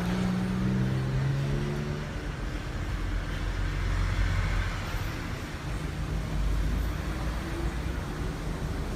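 A motor vehicle's engine running steadily with a low rumble; a steady hum at two pitches is heard over it for the first two seconds, then fades.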